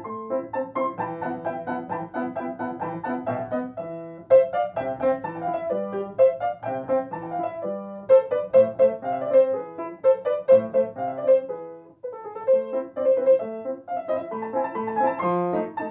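Solo piano playing a quick, busy run of notes, with short breaks about four seconds in and again near twelve seconds.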